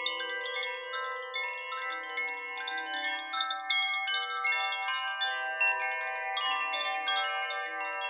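Chimes struck irregularly, a couple of strikes a second, their bright metallic tones overlapping and ringing on into each other.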